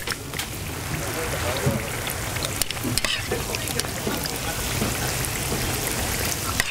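Hotteok frying in shallow oil on a flat griddle: a steady sizzle as a metal hotteok press flattens the dough, with a few sharp clicks of the metal press and tongs.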